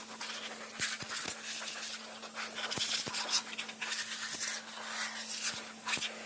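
Compressed air from an air-compressor blow gun set to 50 psi hissing in uneven spurts, with scattered small clicks and rattles, over a faint steady hum.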